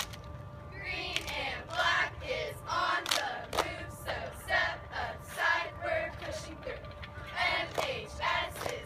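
A cheerleading squad shouting a cheer together, in rhythmic group yells about once a second.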